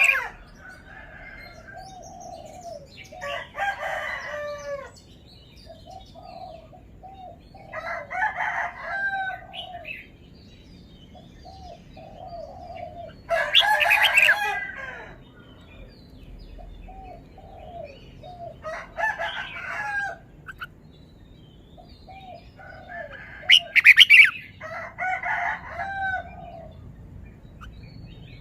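Red-whiskered bulbul singing: short, bright song phrases repeated about every four to five seconds, with softer, lower notes in between.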